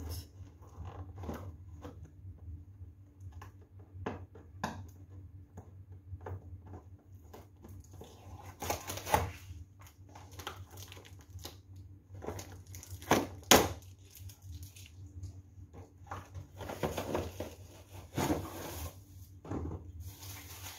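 Ring light being unpacked by hand: packaging rustling and crinkling, with scattered clicks and knocks as the parts are handled, and a few louder rustles along the way.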